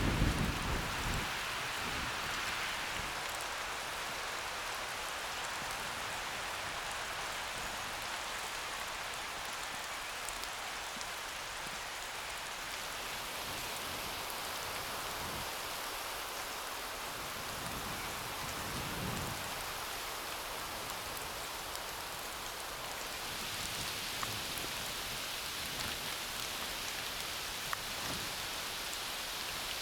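Steady rain falling, an even hiss with scattered faint drop taps. Brief low rumbles near the start and about two-thirds through.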